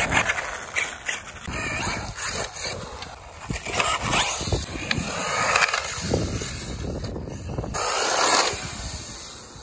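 Arrma Typhon 6S RC buggy's brushless electric motor whining, rising and falling in pitch as the buggy accelerates and slows at speed.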